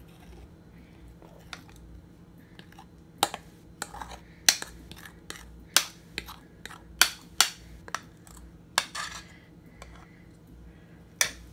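Metal spoon clinking and scraping against a ceramic bowl while scraping thick cake batter out of it: a dozen or so sharp, irregular clicks, thickest in the middle and with one last clink near the end.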